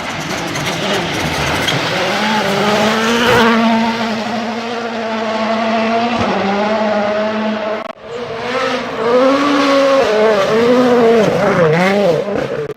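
Rally car engines at high revs, the pitch climbing and dropping with throttle and gear changes, with tyre noise. The sound breaks off sharply about eight seconds in and a second stretch of hard-revving engine follows, swinging up and down quickly.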